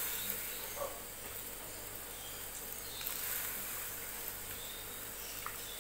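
Tomato-onion masala in oil sizzling with a steady, quiet hiss in a steel pot, while raw potato slices are dropped into it with a few soft taps.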